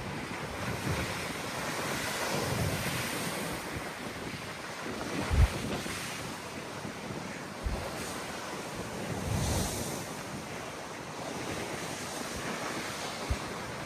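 Sea waves breaking and surging in a strong gale, with gusts buffeting the microphone in low rumbles, the strongest about five seconds in.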